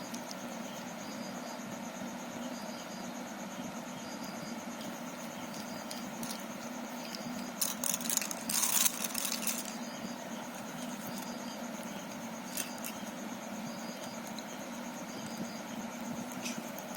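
Small sharp plastic clicks and rattles of Rubik's cube pieces being handled, bunched in a short flurry about halfway through, then two single clicks. Behind them a steady hum with a faint high chirp repeating at even spacing.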